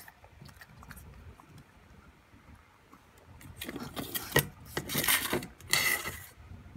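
Stainless steel dog bowl scraping and knocking against the floor as it is pushed about. A quiet start gives way to a run of scrapes and clanks from about halfway in, with a short metallic ring near the end.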